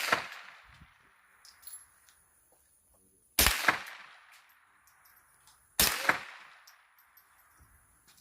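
Gunshots: two shots about two and a half seconds apart. Each has a second sharp crack a split second later and a ringing tail that dies away over a second or so. The ring of an earlier shot fades out at the start.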